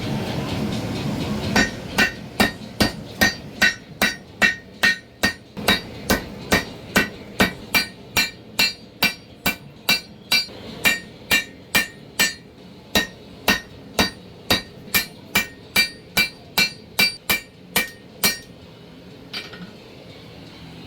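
Hand hammer striking hot steel on an anvil in a steady rhythm, about two and a half blows a second, each blow with a bright metallic ring: the Damascus knife blade being forged out. The hammering stops near the end, leaving a couple of lighter taps.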